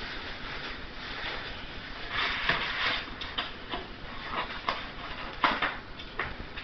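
Cardboard box rustling and crackling as a West Highland White Terrier pushes its nose in and tears at it, with a rustling spell about two seconds in and then a run of sharp crackles, the loudest about five and a half seconds in.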